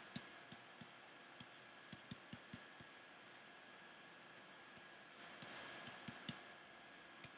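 Faint, scattered clicks of a pen stylus tapping on a tablet surface as numbers are handwritten, with a brief soft scratching of the pen about five seconds in; otherwise near silence.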